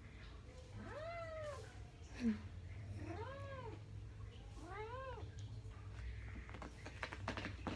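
A cat meowing three times, each call rising then falling in pitch, about a second in, after three seconds and near five seconds. A brief, sharper sound comes about two seconds in, and a few clicks near the end.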